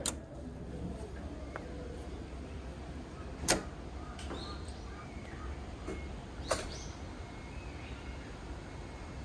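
Outdoor ambience with a steady low rumble, broken by three sharp clicks about three seconds apart, the loudest about three and a half seconds in, and a few faint high chirps.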